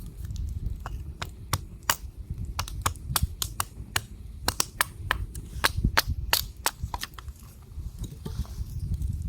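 Beaver chewing close by, with a run of sharp, irregular crunches and cracks, several a second.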